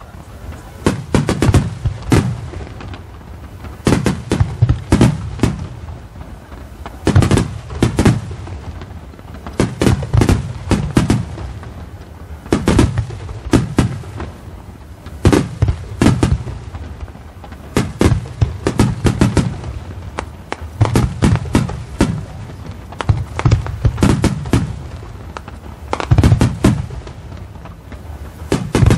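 Starmine fireworks display: aerial shells fired in rapid volleys, each volley a cluster of sharp bangs as the shells burst. A new volley comes every two to three seconds, and each trails off in a low rumble.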